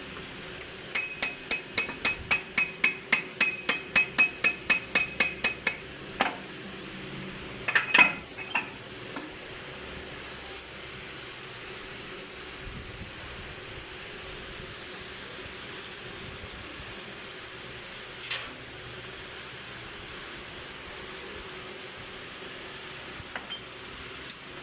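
Rapid hammer blows on metal, about four or five a second and ringing, keeping up for about five seconds. A few single metal knocks follow, then only a steady low hum.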